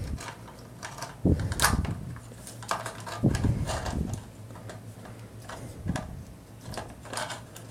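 Scattered plastic clicks and taps of a transforming-robot action figure being posed by hand, its joints clicking as the leg is bent, over a low steady hum.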